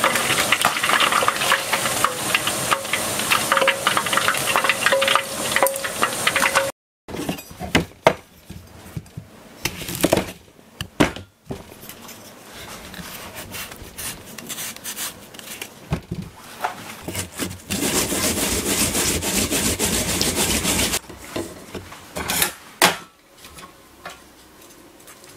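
Pieces of Japanese stargazer deep-frying in hot oil, a dense crackling sizzle that cuts off about seven seconds in. After that come sharp knife taps and knocks on a wooden cutting board as a daikon radish is cut, a few seconds of steady rasping as the daikon is grated, and a few more scattered knocks.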